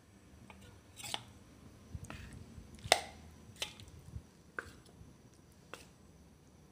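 A metal spoon clinking against a stainless-steel bowl as marinated chicken pieces are stirred and scooped: about six sharp clinks, the loudest about three seconds in.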